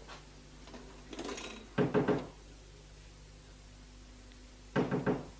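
A person's voice in brief, wordless-sounding bits: a breath about a second in, then short voiced sounds around two seconds and again near the end, over a faint steady hum.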